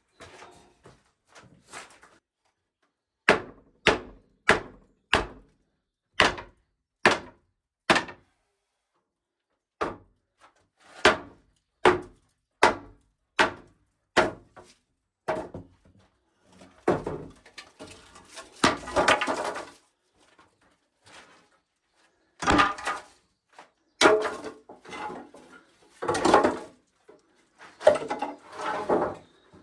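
Knocking on wood, like hammering: a run of sharp blows about one a second, a pause, a second run, then a busier patch of knocks and clatter.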